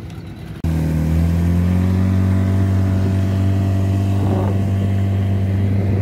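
A boat's outboard motor running steadily, heard close up from aboard. It cuts in abruptly just under a second in, replacing a quieter wash of wind and water.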